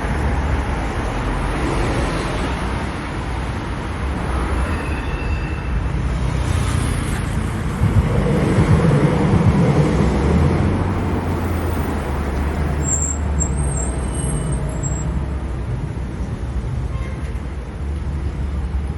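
City street traffic: steady road noise and engine rumble of passing vehicles, with a heavier vehicle rumbling past, loudest about eight seconds in.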